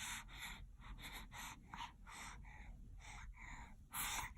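A baby's quick, breathy gasps, about three a second, with a louder gasp near the end: the build-up to a sneeze.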